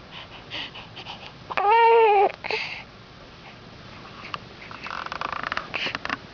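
A newborn baby gives one short, high-pitched cry with a rise-and-fall pitch, lasting under a second, about one and a half seconds in. Quieter breathy and rustling noises follow.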